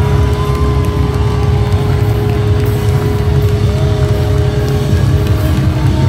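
Loud live metalcore band playing through a PA: heavy, dense distorted guitars and bass, with a thin steady tone held until about five seconds in.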